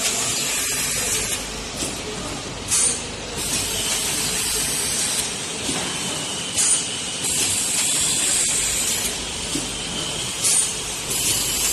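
DB-51/62 plastic thermoforming machine cycling, with compressed air hissing in a repeating pattern about every four seconds: a sharp blast of air, then a longer hiss of a second or two. Steady machine running noise continues underneath.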